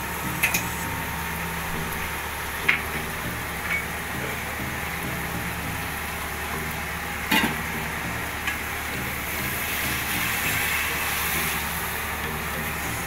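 Onion-tomato masala sizzling in a kadai while it is stirred with a silicone spatula, with a few sharp knocks against the pan. Around the middle, water is poured in, and the sizzle grows a little stronger a few seconds later.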